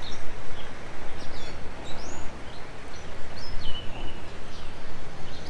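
Several small birds chirping, with short rising and falling calls scattered throughout, over a steady outdoor background noise.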